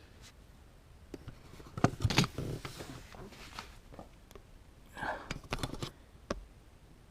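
Scattered clicks and rustles of a handheld automotive scan tool being handled and its buttons pressed while stepping through its menus, with a brief faint voice-like murmur about five seconds in.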